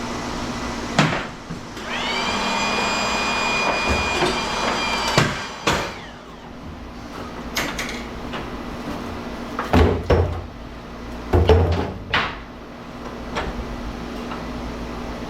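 Hand and power tool work on scrap metal, likely breaking down ballast transformers: a power tool spins up and whines for about three seconds, then several heavy knocks and clanks, over a steady hum.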